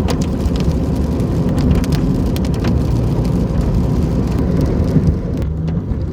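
A car driving in heavy rain: steady low road and engine noise with raindrops ticking irregularly on the bodywork. The drop ticks thin out about five seconds in.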